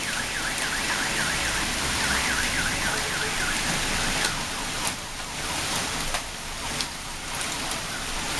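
Heavy rain with hail, a steady loud hiss on the street and parked cars, with a few sharp ticks in the second half. A fast warbling electronic alarm tone, about five rises and falls a second, sounds over it through the first four seconds.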